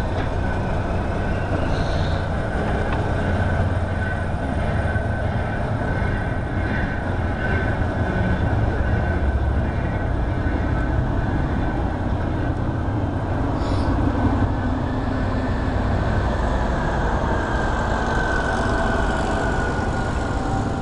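Railway machinery running steadily: a low rumble with a faint steady whine above it that dips slightly in pitch near the end.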